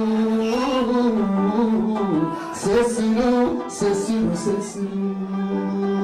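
A man sings an Eritrean song live into a microphone, with instruments behind him. He holds a long note, winds through bending melodic turns, then settles on another long held note about five seconds in.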